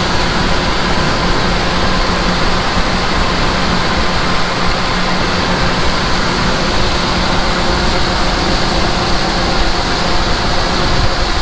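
Heavy diesel farm machinery running steadily: a constant engine drone under a dense, even whir of machinery.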